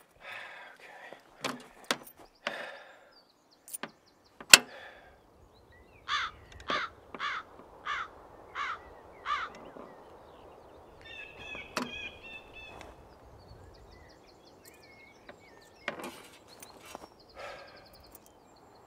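A crow cawing six times in a row, about two calls a second and a half apart, after a few sharp clicks and knocks of a payphone handset. Faint birdsong and more clicks follow.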